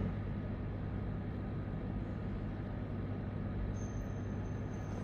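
Steady background hiss with a low hum; a faint high tone comes in near the end.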